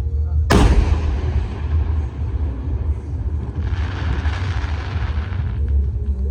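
An aerial firework shell bursts with one sharp, loud bang about half a second in, followed by a rolling decay. About three and a half seconds in, a hissing noise rises and lasts around two seconds over a steady low rumble.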